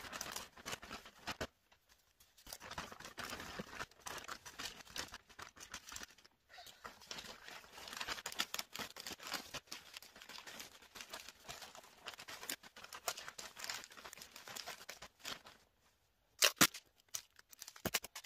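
Gift-wrapping paper crinkling and rustling in stop-start bursts as it is folded and pressed around a box, with short tearing sounds and two louder sharp sounds near the end.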